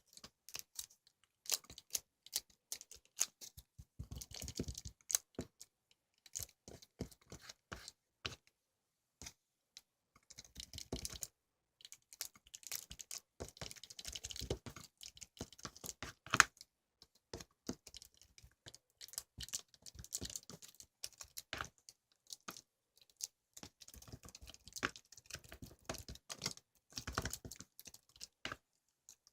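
Irregular run of small clicks, taps and crinkly rustles, the sound of something light being handled close to the microphone, with one sharper click about sixteen seconds in.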